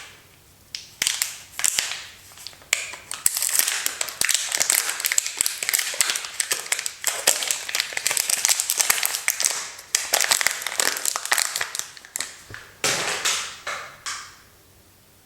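Soap wrappers being torn open and unwrapped by hand: crinkling and crackling of the packaging in several bursts with short pauses. It goes quiet for about the last second.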